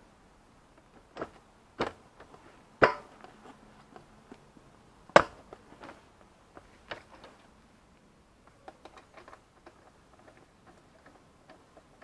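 Motorcycle seat being pressed and knocked back into place on its frame: a few sharp knocks, the loudest about three and five seconds in, then lighter clicks and taps.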